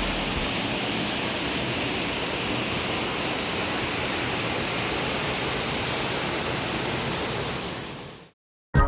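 Waterfall rushing: a steady, dense hiss of falling water, fading out near the end.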